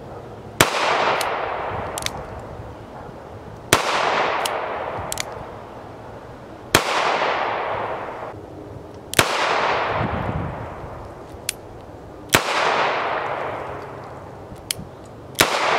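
Smith & Wesson Model 351 PD AirLite .22 Magnum snub-nose revolver fired six times, about one shot every three seconds, each sharp crack followed by an echo that dies away over a second or two. The early shots are fired single action and the last double action, with a few faint clicks between shots.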